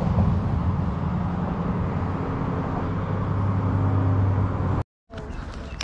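Steady hum of road traffic on the bridge overhead, with a low engine drone that grows about two seconds in; it cuts off abruptly almost five seconds in.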